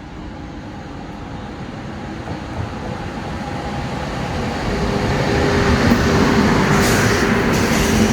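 A train approaching on the rails, growing steadily louder, with a steady ringing tone joining from about five seconds in.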